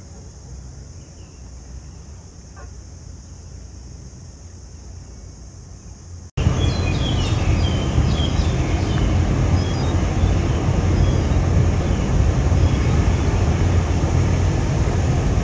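A low, fairly quiet outdoor rumble. About six seconds in, at an edit, it gives way to a much louder steady rushing rumble with a few short high chirps over it.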